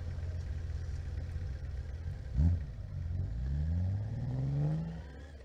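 A vehicle engine idling, a sharp rev blip about two and a half seconds in, then the engine revving up steadily as it pulls away, fading near the end.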